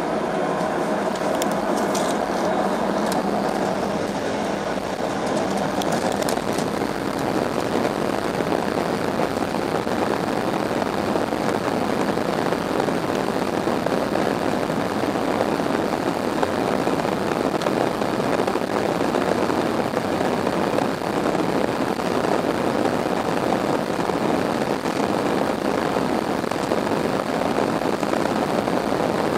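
Airbus A320 jet engines and rolling noise heard from inside the passenger cabin during the takeoff roll: a steady, even rushing as the airliner accelerates down the runway.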